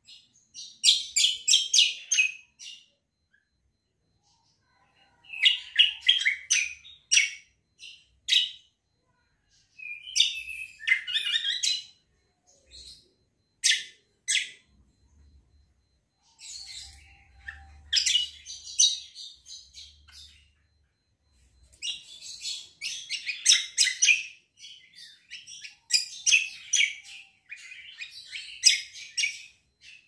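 A caged kecial kombo songbird singing in full voice: rapid, high chattering chirps in phrases of one to three seconds, broken by short pauses.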